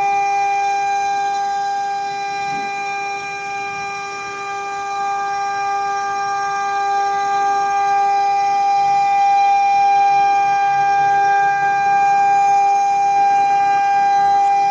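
CNC router spindle running at speed while its bit mills aluminum-plastic composite panel and acrylic sheet: a steady high-pitched whine with a stack of overtones over faint cutting noise.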